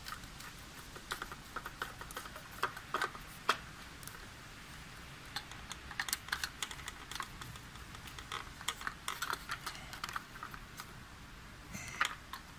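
Light, irregular clicking and ticking of a screwdriver turning small terminal screws on a plastic changeover switch, coming in uneven runs with short pauses between them.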